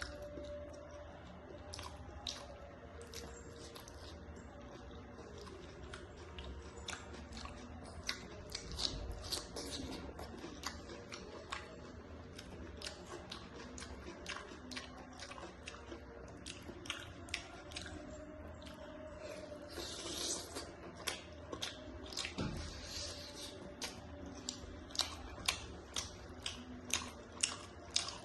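A person chewing and eating mouthfuls of curry close to the microphone, with many short mouth and lip clicks and smacks throughout.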